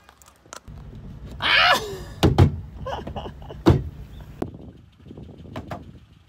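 Clunks and heavy thumps of a car door and of handling inside a car, with the two loudest thumps about two and a half and three and a half seconds in. Just before them comes a short hissing sound with a falling tone.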